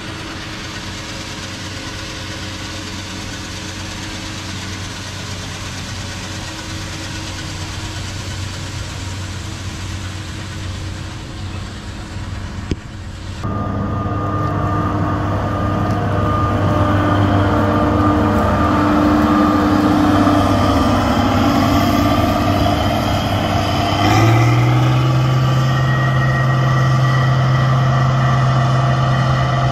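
Heavy farm vehicle's engine idling steadily. About thirteen seconds in the sound switches abruptly to a louder engine run, which steps up in speed and pitch about 24 seconds in and holds there.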